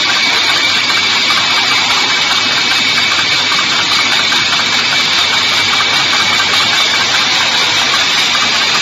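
Automatic sleeve labeling machine running: a loud, steady mechanical hum with two steady high-pitched whines over it, cutting off suddenly at the very end.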